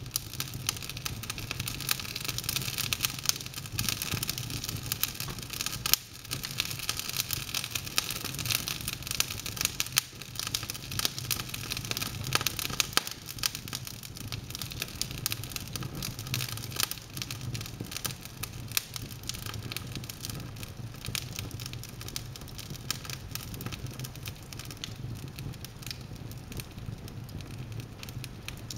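Wood logs burning in an open fireplace, crackling with many irregular sharp pops over a steady hiss, with a low steady hum underneath.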